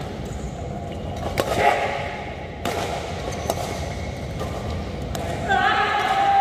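Badminton rackets striking the shuttlecock in a doubles rally, sharp hits about once a second. About five and a half seconds in, a man's long, drawn-out shout starts and holds, louder than the hits.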